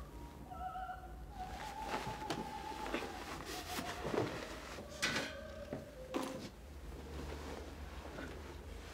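Background music of held, sustained notes over a hurried search: four sharp knocks of drawers and cupboards being banged, the loudest about four and five seconds in, with rustling of bedding and clothes being thrown about.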